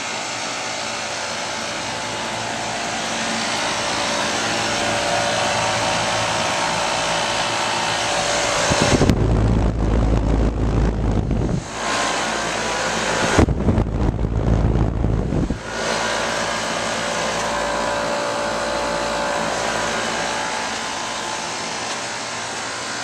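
Old Lennox HVAC unit running: a steady fan rush with a few held hum tones. Twice, about nine and thirteen seconds in, a low rumble of wind on the microphone covers it for about two seconds each.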